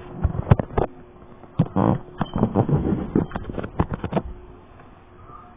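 Handling noise from a phone held close to its microphone: a quick run of clicks, knocks and rubbing, with a short buzzing rattle about two seconds in, settling to a quiet hiss in the last second or so.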